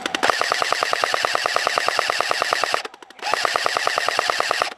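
A&K M249 SAW airsoft electric gun firing on full auto: a long burst of about two and a half seconds, a short pause, then a second burst of about a second and a half, each a rapid, even string of sharp clacks.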